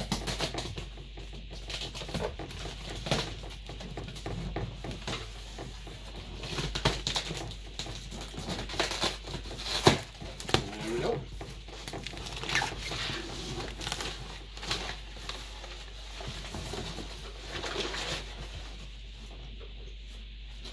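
A large cardboard box being opened by hand: irregular rustling, scraping and crackling of cardboard and packing tape, with scattered knocks, the sharpest about halfway through.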